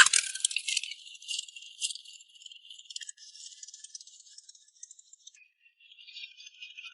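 High-pitched rattling and jingling that starts suddenly, dense for about the first second, then thinning into scattered jingles.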